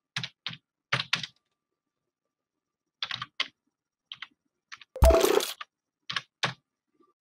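Computer keyboard typing in short, irregular bursts of keystrokes with pauses between, and one louder clack about five seconds in.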